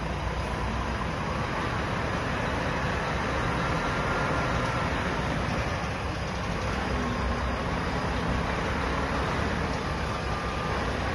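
Steady drone of heavy trucks' diesel engines idling in a parking lot, with no sudden sounds.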